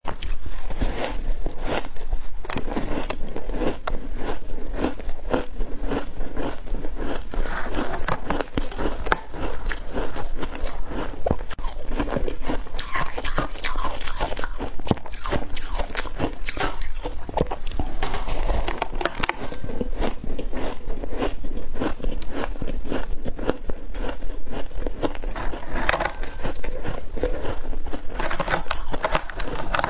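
A person biting and chewing frozen ice coated in powder: a steady run of sharp crunches and crackles as the ice cracks between the teeth.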